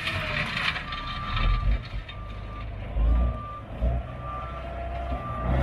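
A truck's reversing alarm beeping about once a second over a diesel engine running, with a few low thuds.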